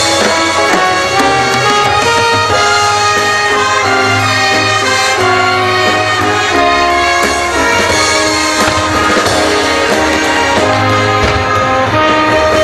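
Orchestral music with brass playing steadily.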